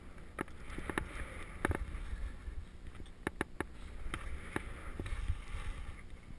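Skis swishing through deep powder snow during turns, with wind buffeting the camera's microphone as a low rumble. Several sharp clicks are scattered through.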